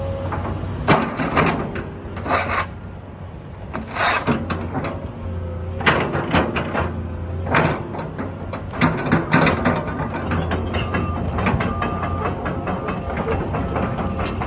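Komatsu PC200LC-8 hydraulic excavator's diesel engine running steadily, with repeated loud metallic clanks and bursts of scraping and rattling as the machine works.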